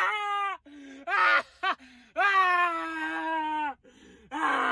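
A man's voice giving long, drawn-out vocal cries, several in a row with short gaps, each sliding down in pitch at its end; the longest is held for about a second and a half.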